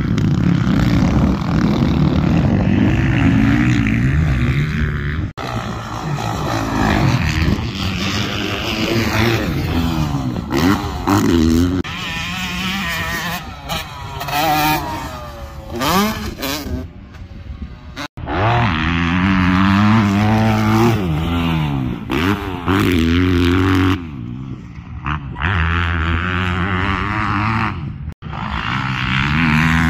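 Motocross dirt bike engines revving and shifting gears as the bikes ride round a dirt track, their pitch climbing and falling over and over. The sound drops out suddenly three times, for a split second each.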